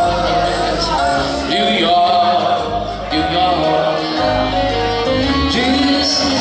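A man singing into a microphone over electronic keyboard accompaniment, a live amplified performance with held keyboard notes under a sliding vocal line.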